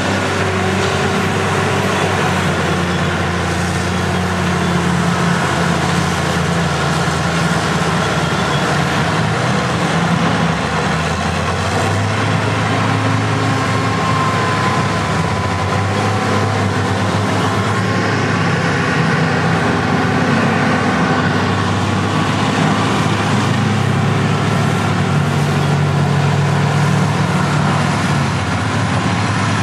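Heavy diesel engines of vintage earthmoving machines running under load, the nearest a Caterpillar motor grader working the ground. A steady, low engine note that rises and falls a little in pitch as the machines work.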